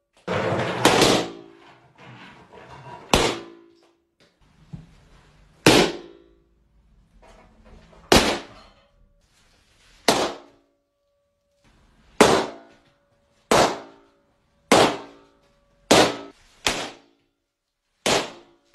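A series of balloons bursting, one sharp bang every one to two seconds, coming faster near the end, about a dozen in all. A longer, rougher crash fills the first second and a half.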